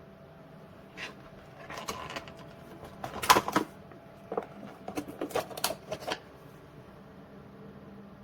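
A series of light clicks and knocks, irregularly spaced, from handling, the loudest about three and a half seconds in, with a faint steady hum beneath; the clicks stop about six seconds in.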